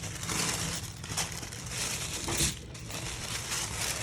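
Wrapping paper crinkling and rustling as it is handled, in several uneven surges with a short lull about two and a half seconds in.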